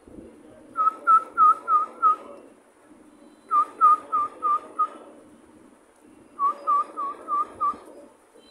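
Whistling: three runs of five short, evenly spaced notes each, at the same pitch, with a short pause between the runs.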